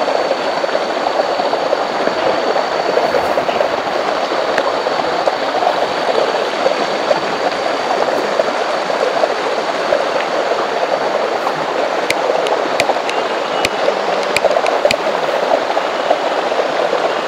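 Forest stream running over rocks: a steady rushing of water. There is a faint high steady tone in the first half, and a few faint sharp ticks about twelve to fifteen seconds in.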